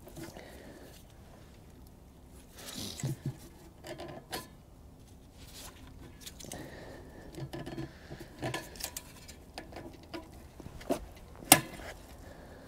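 Scattered small clicks, light metallic knocks and rustling as gloved hands fit a carburetor and its gaskets onto a small generator engine, with one sharp click near the end the loudest.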